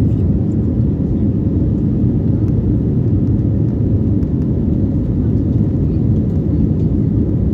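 Airbus A321neo's Pratt & Whitney geared turbofan engines and rushing airflow heard inside the cabin during the climb after takeoff: a steady, deep drone.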